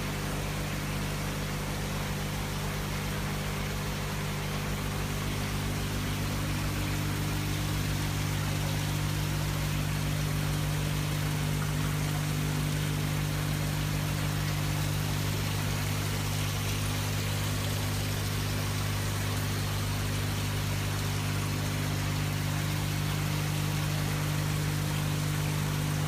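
Indoor water fountain pumps humming steadily, with water running and trickling as an even hiss behind the hum.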